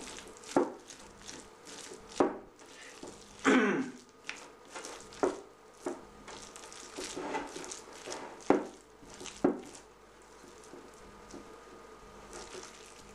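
A spatula stirring and scraping a thick egg filling in a glass bowl. Irregular soft knocks and scrapes come every second or two as the spatula hits the glass.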